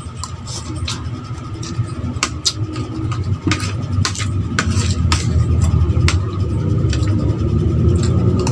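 Eating sounds: a metal spoon tapping and scraping on a plate and sharp clicks of chewing, scattered irregularly, over a steady low rumble.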